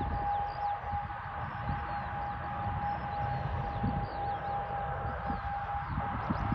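Airliner engine noise from a landing aircraft: a steady whine held on one pitch over an uneven low rumble.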